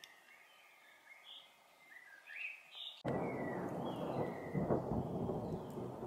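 Faint chirps of a common chaffinch. About halfway through, a loud thunder rumble with rain noise cuts in suddenly and becomes the loudest sound, while the chirps carry on faintly above it.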